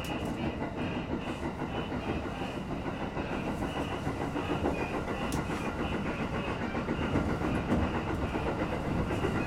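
A JR 701 series electric commuter train running, heard from inside the carriage: a steady rumble of wheels on rails and running gear.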